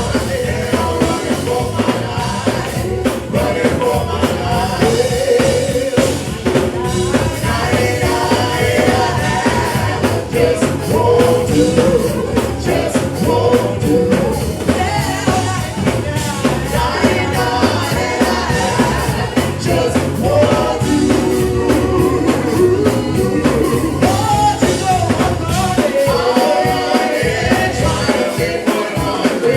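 Live gospel worship music: a singer over a full band with drum kit. The bass drops away near the end.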